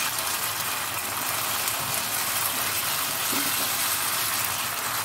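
Spiced chhana and tomato masala frying in oil in a pan, a steady sizzle as it is sautéed down.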